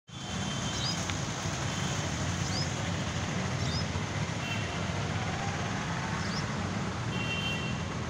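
Steady low rumble of outdoor vehicle traffic, with short high chirps every second or two.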